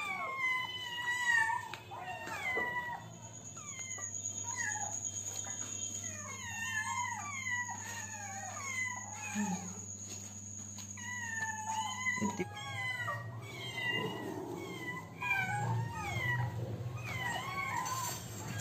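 Several hungry kittens meowing over one another, a steady stream of short, high calls as they beg for food.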